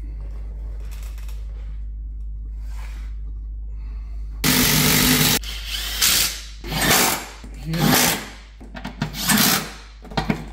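Cordless impact wrench driving in bolts under the car. One run of about a second comes about four and a half seconds in, then four shorter bursts about a second apart.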